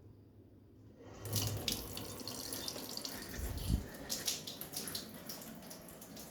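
Water tap turned on about a second in and left running, with irregular knocks and a low thud partway through: household water pipes banging in the plumbing.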